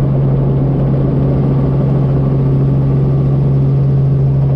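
Helicopter engine and rotor noise heard from inside the cockpit: a steady, unchanging low drone at constant pitch while the aircraft hovers before departure.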